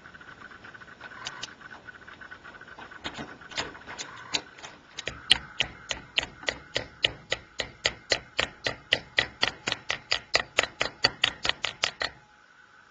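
Light hammer tapping on a small metal part: sharp, evenly spaced taps at about three or four a second that build up a few seconds in and stop abruptly near the end, over a steady high hum.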